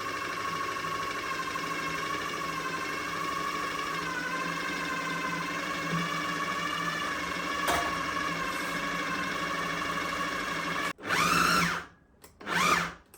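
Food processor motor running steadily as it mixes ginger biscuit dough, its whine dipping slightly once as it takes the load. About eleven seconds in it stops suddenly, then gives two short pulses that spin up and die away.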